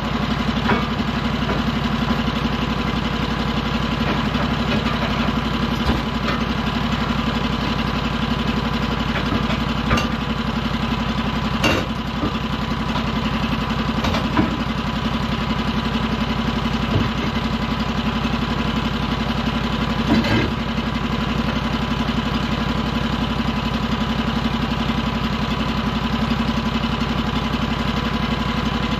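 Portable band sawmill's engine running steadily at idle, with a few short knocks and clatters along the way.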